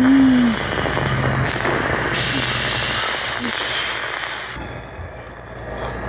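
Rough, hissing rubbing noise of fingers handling a phone right over its microphone. It cuts off suddenly about four and a half seconds in and leaves a fainter hiss. A low steady tone ends about half a second in.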